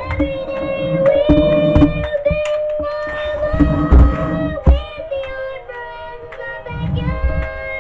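Fisher-Price Sing & Spin Pablo plush toy playing its song: a sung children's tune over an electronic backing with a steady beat, through the toy's small speaker.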